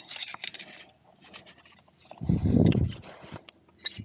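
A climbing nut being worked loose from a rock crack: metal scraping, rasping and clicking against rock. A louder low dull thump or rumble comes about two and a half seconds in.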